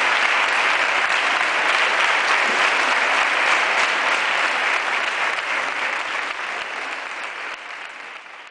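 Audience applauding, a dense steady clapping that fades away over the last couple of seconds.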